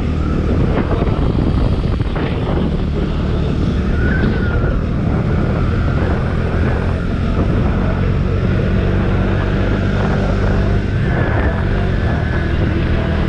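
Motorcycle engine running at a steady speed while riding, with wind rushing on the microphone.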